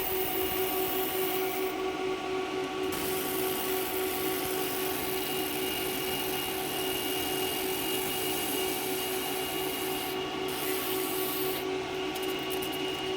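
A steady machine hum with a rough, rasping noise over it; the rasping drops out briefly a few times while the hum runs on.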